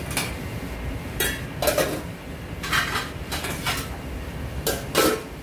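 Stainless-steel kitchenware (trays, lids and bowls) clanking and clattering as it is handled, with about eight irregular sharp knocks that ring briefly. A steady low hum runs underneath.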